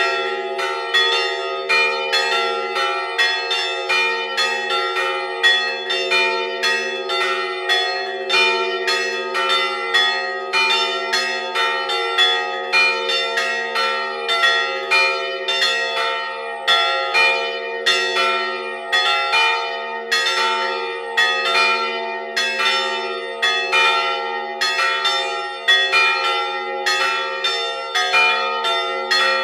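Three church bells of an Orthodox belfry, the largest about 258 kg and tuned near B-flat, the others near E and E-flat, chimed together in a quick, uneven pattern of roughly two to three strikes a second. Their ringing overlaps into a continuous hum, heard close up among the bells.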